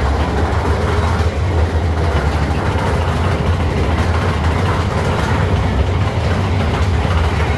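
Steady low rumble of a moving vehicle, even in level throughout.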